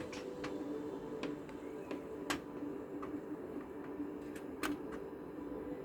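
Scattered light clicks and taps of a USB cable plug being handled and fumbled against a computer's rear ports while feeling for the socket, over a steady low hum.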